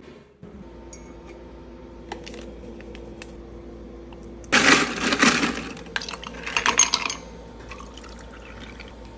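A steady low hum, then a loud rush of splashing liquid lasting about a second, followed by a second, broken stretch of splashing with small clinks.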